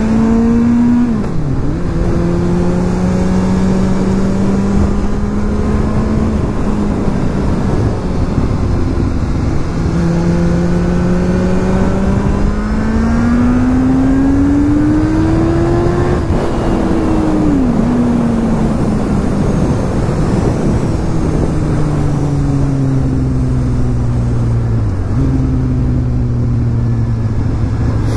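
Kawasaki Z1000's inline-four engine under way. Its note climbs in pitch under acceleration and drops sharply at gear changes, about a second in and again around halfway. It then slowly falls as the bike slows and settles low near the end, over a steady rush of wind noise.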